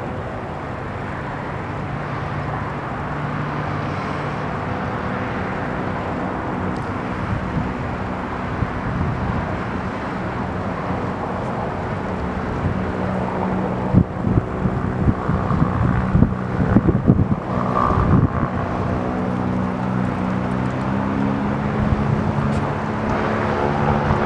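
Goodyear blimp's propeller engines droning steadily in flight. From about halfway through, wind buffets the microphone in gusts.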